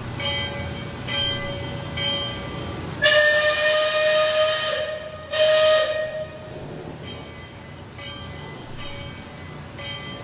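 Steam whistle of the Liberty Square Riverboat (Liberty Belle) blowing with a hiss of steam, one long blast from about three seconds in, then a short second blast after a brief break. It answers the 'sound last bell' departure call. Before and after the whistle a bell strikes about once a second.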